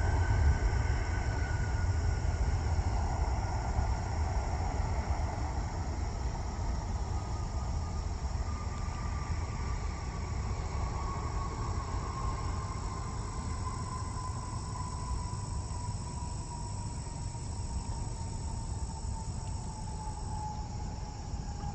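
Distant jet engines of a Boeing 767-400 on the runway: a low rumble under a whine that slowly falls in pitch as the engines wind down.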